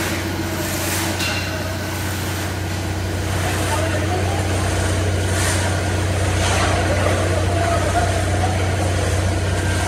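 Concrete pump's engine running steadily while concrete is pumped through the line and hose into the tank wall forms, with a few brief rushes of noise.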